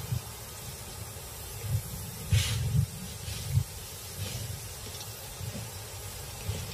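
Heavy, irregular paw thuds and swishing of dry grass as a male lion charges through it. A sharp hiss stands out about two and a half seconds in, with fainter ones after.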